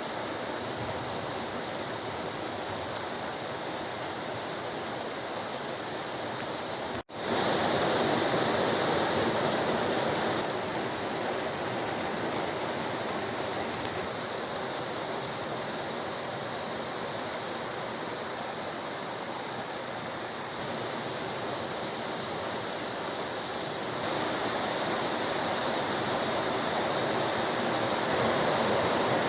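Heavy rain falling steadily, a dense even hiss of water. About seven seconds in it cuts out for an instant and comes back louder.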